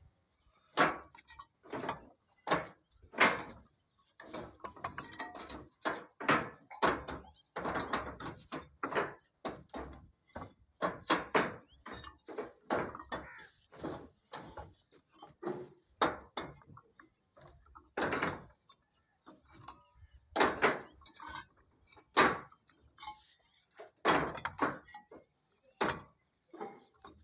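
A long run of irregular knocks and thuds, roughly one or two a second.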